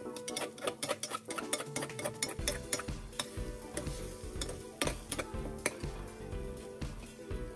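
A spatula scraping and knocking against a metal pan as an egg mixture is stirred, with a light sizzle of frying. Background music plays underneath, with a low beat coming in about two and a half seconds in.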